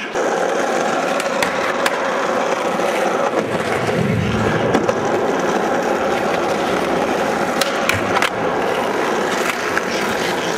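Skateboard wheels rolling steadily on a concrete floor, with a few sharp clacks of the board. Three of the clacks come close together about three-quarters of the way through.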